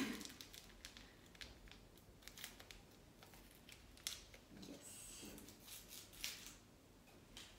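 Small paper sachet of baking powder being shaken and torn open: faint crinkling and scattered small ticks of paper, with a brief rustling hiss about five seconds in.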